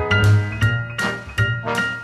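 Swing-style jazz music: struck mallet-percussion notes over a steady bass line.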